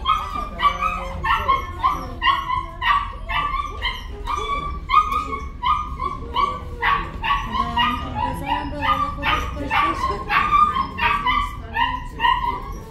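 German Shepherd dog whining and yelping over and over, short high-pitched cries coming two or three times a second.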